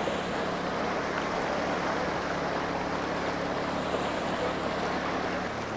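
Swift river current rushing over rocks around wading legs, with the steady hum of a small engine underneath, the generator that powers the electrofishing barge. The hum shifts slightly in pitch near the end.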